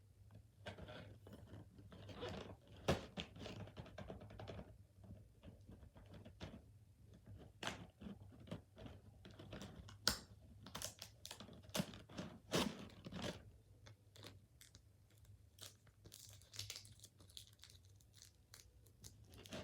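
Packing tape being peeled and torn off a toy's packaging, with irregular short rips, clicks and crinkling as the package is handled up close.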